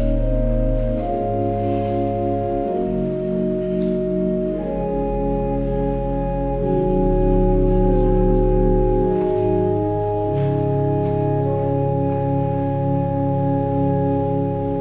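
Church organ playing a slow piece in held chords that change every second or two, with deep pedal notes underneath and a wavering pulse in the held notes.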